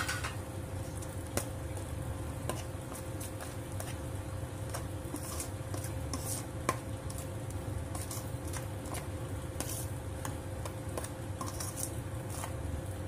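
Steel spoon stirring and scraping masala around a steel kadhai as the masala is roasted: irregular clicks and scrapes of metal on metal, over a steady low hum.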